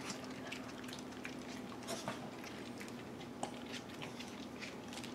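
Cavalier King Charles spaniel eating off a floor mat: quick, irregular wet clicks of licking and chewing, with a few sharper ones about two seconds in and again a little past the middle.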